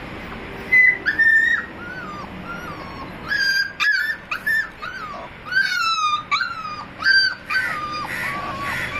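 Puppy whining and crying: a string of short, high-pitched whimpers, many sliding down in pitch at the end, starting under a second in and repeating quickly.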